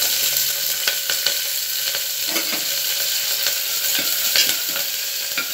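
Curry leaves and fennel seeds sizzling steadily in hot sesame oil in a pressure cooker, with a ladle stirring and scraping against the pot in short clicks.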